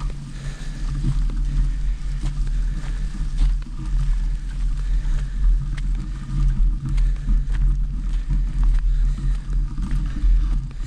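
Off-road vehicle engine running steadily while riding over rough ground, with frequent irregular knocks and rattles from the bumps.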